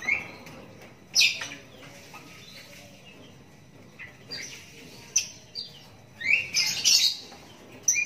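A 32-day-old lovebird chick giving short, sharp, high chirps at irregular intervals, with a quick run of several calls between about six and seven seconds in.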